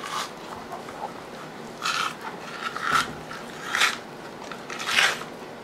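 Silver-skin membrane being pried up and peeled by hand off the back of a raw rack of pork ribs: a series of short, sharp peeling and scraping sounds, about five in all, roughly a second apart.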